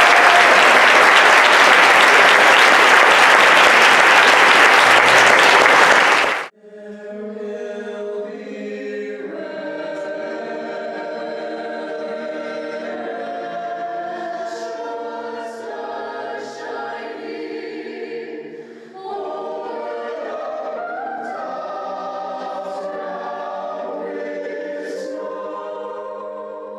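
Audience applauding loudly, cut off abruptly about six seconds in. A choir then sings held chords.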